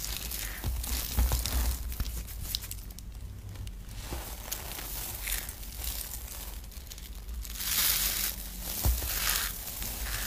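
Hands squeezing, crumbling and tearing apart clumps of grated soap shavings: a dry crunching and crinkling that comes in repeated waves.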